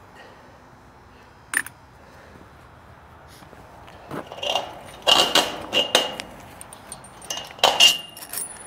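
Steel gate-lift hardware (bolt, washers and flange nuts) clinking together in the hands as it is sorted and fitted. One click about a second and a half in, then a run of sharp metallic clinks with brief ringing in the second half.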